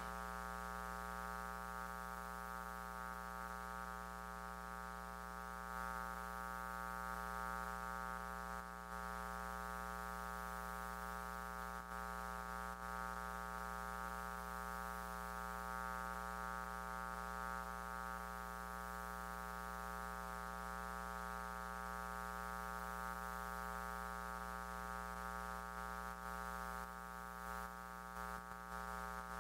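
Steady electrical buzz in the audio feed, a drone of many evenly spaced tones over faint hiss that does not change.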